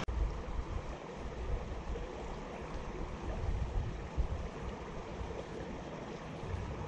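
Steady rush of creek water, with wind rumbling on the microphone in uneven gusts.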